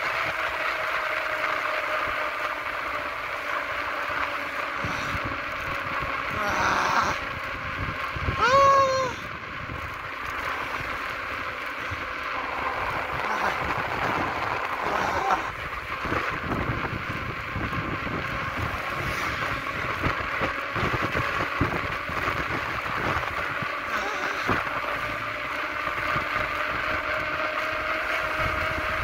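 Steady rolling noise and wind rush from a fast downhill run on asphalt, with a constant hum. About nine seconds in, a short voice-like call rises and falls.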